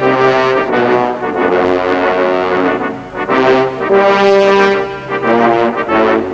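Title theme music, a run of held notes that change about every half second to a second, with a short dip in level about three seconds in.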